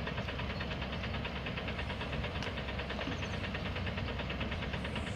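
Hino dump truck's diesel engine running steadily under load, an even rhythmic rumble as the truck creeps forward up a slippery dirt slope.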